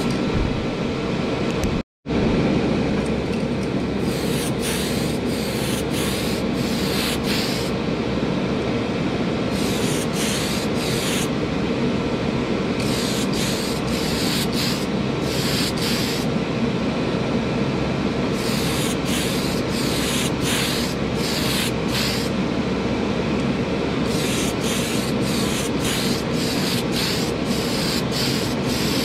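Primer sprayed onto a model car body in short bursts, a few at a time with pauses between, over the steady rushing of a hobby paint booth's exhaust fan.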